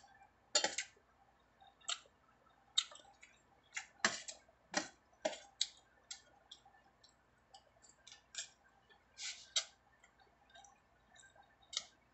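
Close-up eating sounds of a person chewing a mouthful of food: irregular wet mouth clicks and lip smacks, sometimes several in quick succession.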